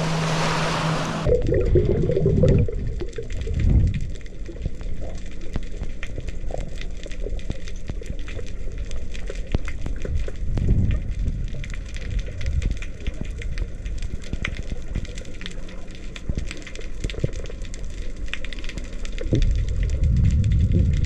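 About a second of small waves washing up on a sand beach, then underwater sound from a snorkeling camera: muffled low water noise that swells now and then, with a steady scatter of faint crackling clicks.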